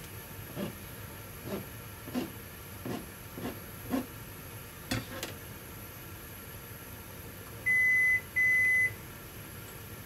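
A kitchen knife cuts slices of ham on a cutting board: about eight short taps during the first five seconds, then the cutting stops. Near the end come two loud electronic beeps, each about half a second long, one right after the other.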